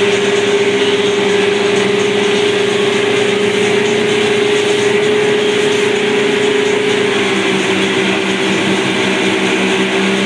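Speedboat engine running steadily at speed, a strong steady hum that drops slightly in pitch about seven seconds in, over the rush of the wake and wind.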